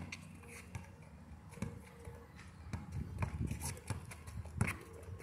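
Basketball bounced on an asphalt court, mixed with players' footsteps as they run and shuffle. The thumps come in a quick cluster past the middle, with one sharper knock near the end.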